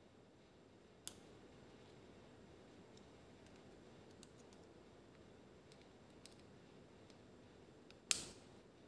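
Faint scattered clicks and taps of small parts and tools being handled, with a sharp click about a second in and a louder click near the end, over quiet room tone.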